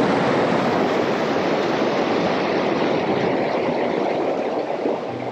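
River water rushing over a shallow riffle, a loud steady rush.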